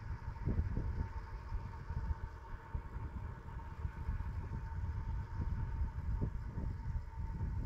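Wind buffeting the microphone and road rumble from a vehicle travelling along a paved road, in irregular gusts, with a faint steady high whine.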